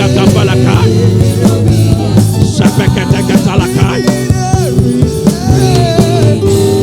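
Music with sustained low chords and bass notes held steady underneath, and a moving voice-like melody line over them.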